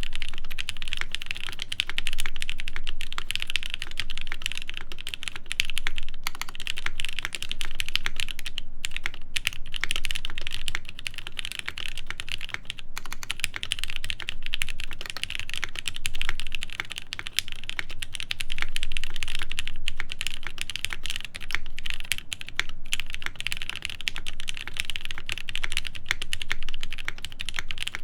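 Continuous fast typing on a top-mount mechanical keyboard with lubed Gateron Ink linear switches, an aluminium half plate and GMK doubleshot ABS keycaps: a steady stream of key strikes with the occasional heavier stabilized-key thock.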